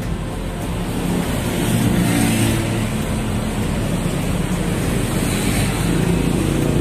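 Road traffic on a city street: cars passing close by, a steady rush of tyre and engine noise with a low engine hum that swells about two seconds in and again near the end.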